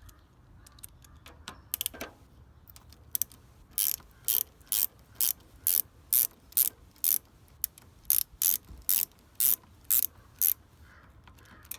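Ratchet wrench with a 7 mm socket clicking as it backs out a fastener. A few scattered clicks come first, then a steady run of about two clicks a second for several seconds.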